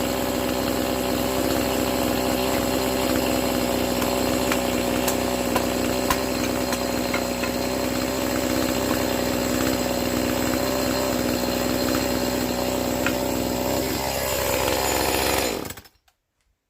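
Chainsaw engine running at a steady speed, then dropping slightly in pitch and cutting off about a second before the end.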